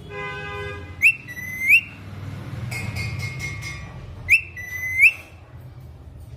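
Parrot whistling: a sharp rising whistle followed by a held note that flicks upward at its end, given twice, with a steadier held whistle in between. It opens with a lower, buzzy held tone.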